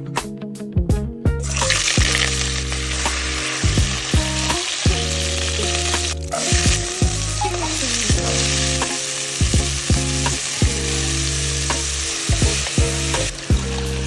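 Food frying in a hot pot or pan: a steady sizzle that starts about a second and a half in and stops shortly before the end, with background music underneath.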